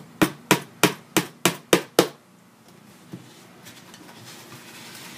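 Seven quick hammer taps, about three a second, fixing a plastic cable clip to the wooden side of a birdhouse, then faint handling of the wooden box.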